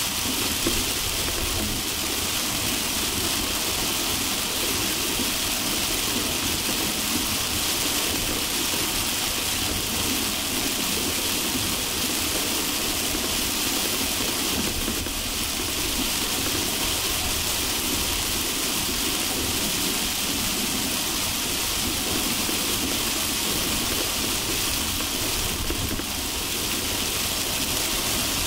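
Heavy rain on a moving car, mixed with the car's road and engine noise: a steady, even hiss with a low rumble underneath.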